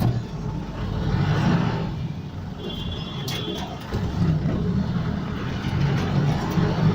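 Road traffic: a steady rumble of vehicle engines going by. About three seconds in there is a short high-pitched beep and a sharp click.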